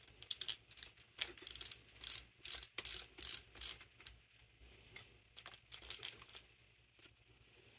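Bursts of metallic clicking from hand work on a Carter Thermoquad carburetor's small parts and tools, coming in quick irregular strokes of about two to three a second and stopping about six and a half seconds in.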